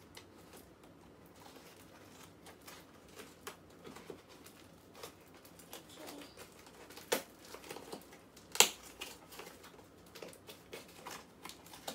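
Scissors snipping and scraping through thick packing tape on a small cardboard box, with rustling and light clicks, and two sharp, louder snaps in the second half as the box is forced open.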